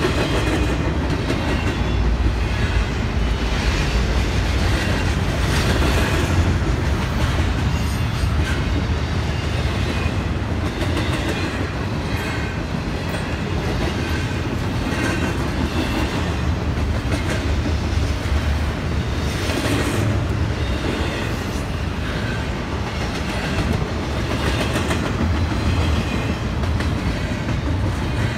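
Double-stack intermodal freight cars rolling past at a grade crossing: a steady rumble of the train with the clack of wheels over rail joints.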